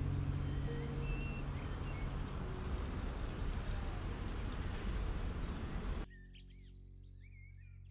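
A loud, even rushing noise that cuts off abruptly about six seconds in, followed by birds chirping over faint background music.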